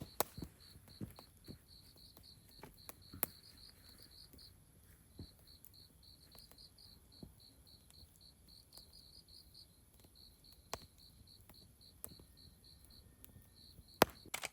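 Crickets chirping in a fast, even pulse, pausing briefly now and then. A few sharp pops from the campfire cut in, the loudest near the end.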